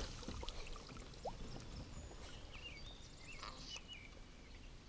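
Faint river water trickling and sloshing around a landing net held at the side of a boat while a small musky is handled in it, with a few light clicks and some faint high chirps in the middle.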